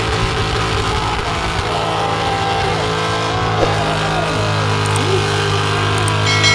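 A car engine running, with music underneath.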